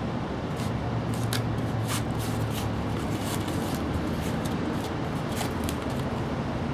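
Kitten pouncing on and clawing a sheet of corrugated cardboard: a run of short, irregular scratchy rustles and crackles.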